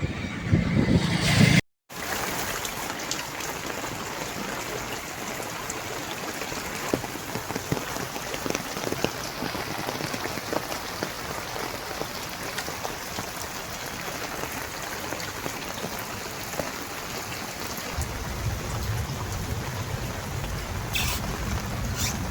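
Steady heavy rain falling, an even hiss dotted with small drop ticks. Near the start, a short loud passage cuts off abruptly, and a low rumble builds in the last few seconds.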